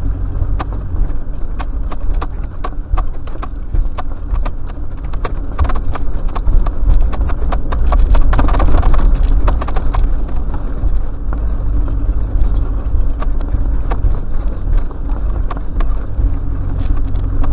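Four-wheel drive driving over a rough sandy track: a low engine and road drone with a steady stream of knocks and rattles, louder about eight seconds in.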